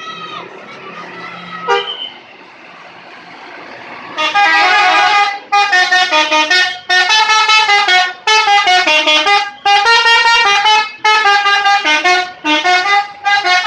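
Telolet horn of a Subur Jaya super-high-deck bus playing a quick multi-note melody, starting about four seconds in: a run of loud, tone-changing blasts broken by short pauses. Before it, fainter background noise and a brief knock.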